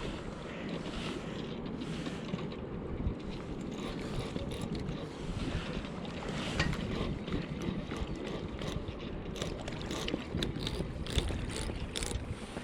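Steady rush of river current with wind buffeting the microphone, and scattered sharp clicks that come more often in the last few seconds.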